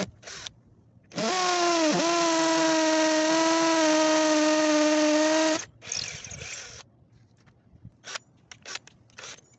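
Cordless hammer drill's motor spinning up and running steadily at high speed for about four seconds, with a brief dip in speed about two seconds in, then a short rattle as it stops. A few sharp clicks come before and after the run.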